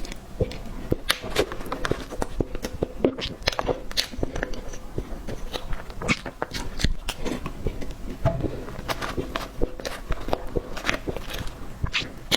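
Close-miked eating of cake: irregular wet clicks and smacks of biting and chewing, several a second.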